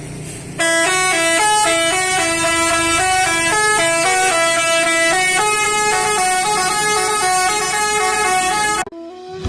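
Indonesian tour bus telolet horn, a multi-tone melody air horn, playing a quick tune of changing notes. It starts about half a second in and cuts off suddenly near the end.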